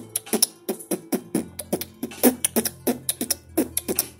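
Hip-hop backing beat playing without vocals: sharp drum hits several times a second over a low, sustained bass.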